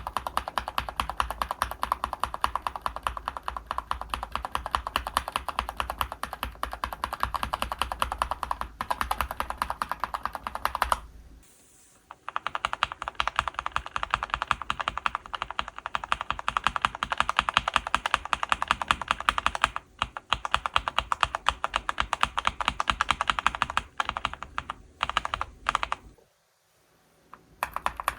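Fast typing on a mechanical keyboard fitted with linear switches: a dense, rapid clatter of keystrokes. It breaks off briefly about eleven seconds in and again shortly before the end.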